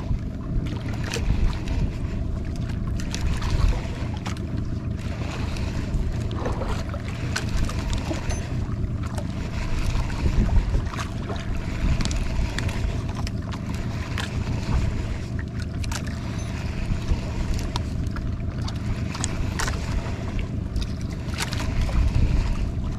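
A small boat's engine running steadily under wind noise, with scattered sharp clicks and knocks throughout.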